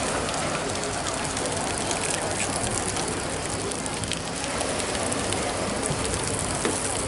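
Steady hissing, crackling ambience of a busy pebble beach, with faint murmuring voices.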